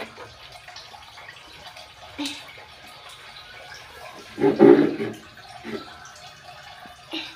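Water splashing and trickling while a baby is bathed, with a short vocal sound about four and a half seconds in.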